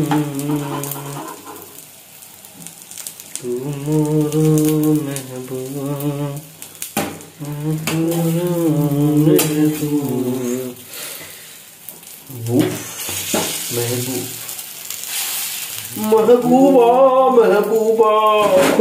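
An egg-and-onion omelette sizzling in a frying pan, under a man humming a tune in long held notes. The humming is the loudest sound; the sizzle comes through most clearly about two thirds of the way through, when the humming pauses.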